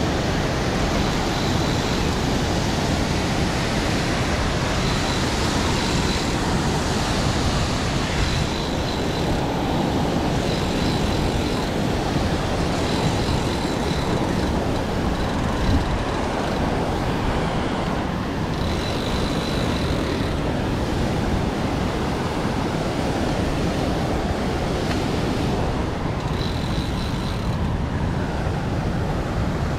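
Steady rushing of river water with wind buffeting the microphone, an even noise that never lets up. A faint, thin, high-pitched tone comes and goes every few seconds over it.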